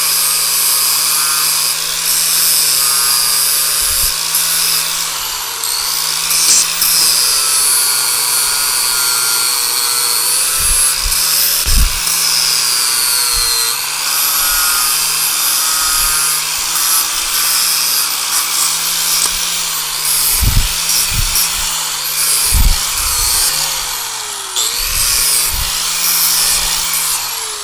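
Electric grinder running steadily while the corners of small steel bracket pieces are ground round. Its pitch sags several times as it is pressed into the metal, with a few knocks along the way, and it shuts off at the end.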